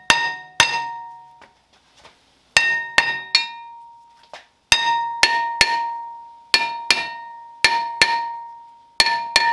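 Steel hammer striking a seized cast-iron rear brake rotor of a 2015 Jeep Grand Cherokee, about fourteen blows in quick groups of two or three. The rotor rings with a clear metallic tone after each blow. The rotor is stuck fast on the hub and won't come off.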